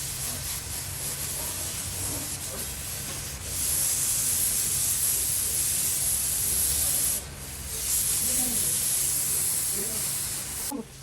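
Air spray gun hissing as primer is sprayed onto repaired body panels: quieter at first, then in two long loud bursts with a short break about seven seconds in, over a low steady hum.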